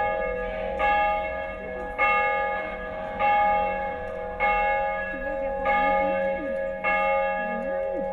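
A single church bell struck at a slow, even pace, about once every 1.2 seconds, about seven strokes, each one ringing on until the next. Faint voices are underneath.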